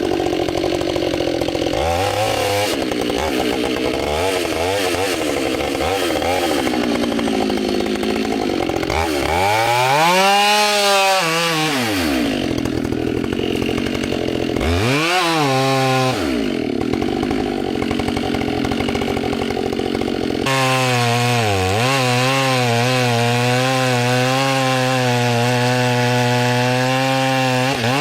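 Chainsaw running, revving up and back down twice, then held steady at high revs from about twenty seconds in as it cuts cedar.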